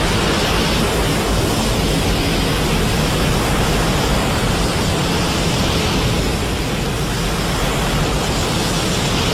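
Heisei Godzilla film sound effect: a loud, steady rushing roar of noise with no pitch, holding level throughout.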